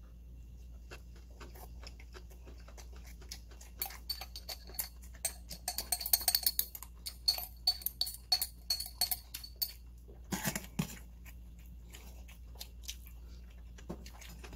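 Steel spoon scraping and clinking inside a glass jar and against a metal lunchbox tin: a fast run of sharp, ringing clicks lasting several seconds, then a few scattered taps near the end.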